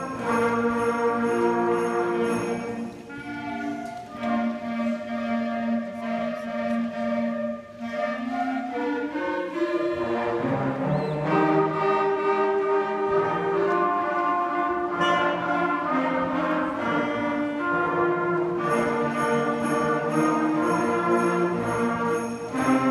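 School concert band playing: flutes, saxophones and trombones holding sustained chords, softer for a few seconds after the start and fuller again from about ten seconds in. Sleigh bells jingle along at the start and again over the last few seconds.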